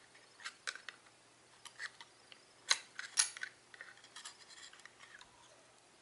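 Light clicks and taps of small metal and plastic parts being handled in a laptop's drive bay as the hard drive's holding bracket is taken out, with two sharper clicks near the middle and a soft scraping after them.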